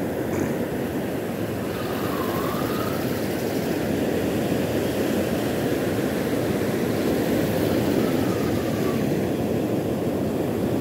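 Steady rush of surf breaking on a sandy beach, with wind on the microphone.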